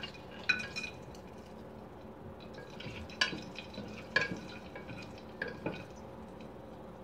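Whole spices dropped into a metal pressure cooker and stirred with a wooden spatula: a few sharp, scattered knocks of wood against the pot's metal wall, some with a short metallic ring.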